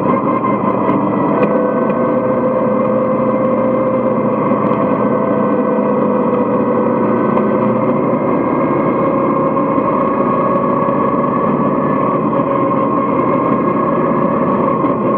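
Vintage dirt-track race car's engine running hard under racing load, heard from inside the cockpit. Its pitch holds steady with small rises and falls.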